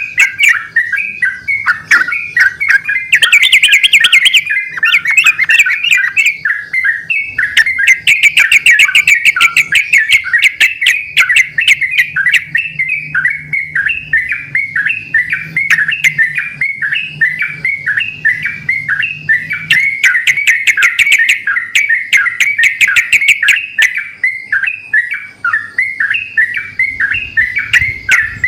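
Several yellow-vented bulbuls singing back and forth in a continuous, overlapping stream of short bubbly phrases. A few times the song breaks into bursts of fast rattling chatter.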